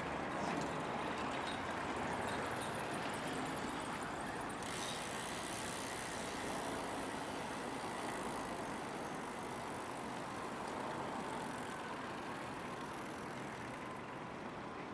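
Steady vehicle noise, slowly fading, with no clear crossing-bell rhythm.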